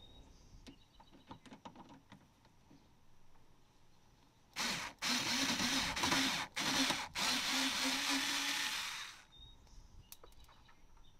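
SKIL cordless driver whirring as it backs out a bumper screw, running for about four and a half seconds with three brief stops. Light clicks of the tool being fitted to the screw come before it.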